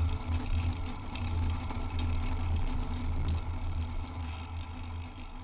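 Wind buffeting the microphone of a bicycle-mounted camera, with tyre and street noise, as a steady low rumble that fades out over the last couple of seconds.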